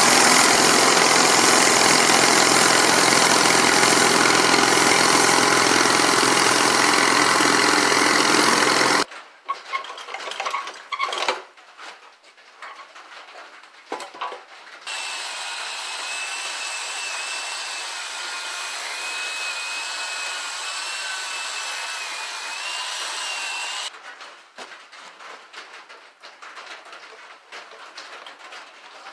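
Farm tractor engine running steadily, stopping abruptly about nine seconds in. Then scattered metal clanks and taps, a steady whir with a wavering high whine for about nine seconds, and more light knocks near the end.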